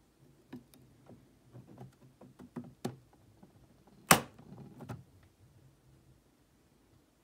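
A scatter of small clicks and light knocks, with one sharp, louder knock about four seconds in.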